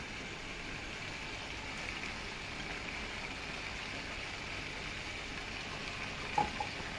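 Steady sizzling hiss of paneer gravy simmering in a non-stick kadai on a gas stove, with a short light clink about six seconds in.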